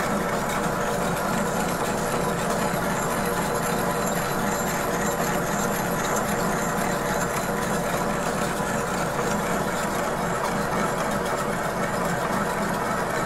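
Vertical milling machine running steadily with a boring head in the spindle, boring out the valve bore of a bronze water-pump body casting. It is an even whir that does not change.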